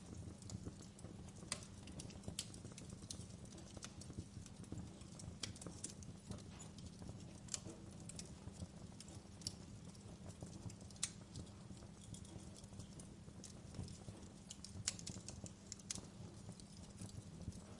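Wood fire burning in a fireplace: a low rumble with irregular crackles and snaps of burning logs.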